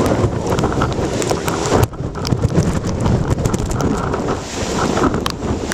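Strong gusty wind blowing across the microphone, loud and rumbling, with scattered sharp ticks throughout; the hiss briefly drops about two seconds in.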